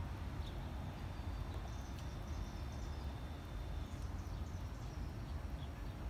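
Outdoor ambience: a steady low rumble, with faint high bird chirps near the middle and a thin, steady high tone lasting a few seconds.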